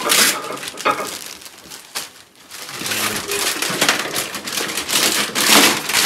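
Plastic packaging bag crinkling and rustling as it is handled and pulled open. It comes in short bursts at first, then runs steadily louder in the second half.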